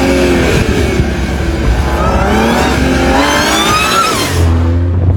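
Supercharged car engine revving: a low exhaust rumble under a supercharger whine that climbs steadily in pitch from about two seconds in, then drops off near the end.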